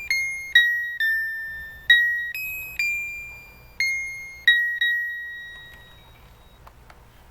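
1980 Mr. Christmas Lights & Sounds of Christmas unit playing an electronic carol tune in single chime-like notes, each starting sharply and fading. The tune ends about five seconds in, with the last note fading out, followed by a few faint clicks.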